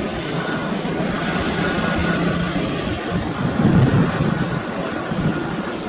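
Airbus A350-900 touching down: a steady jet engine roar with a low hum under it, swelling louder a little past halfway.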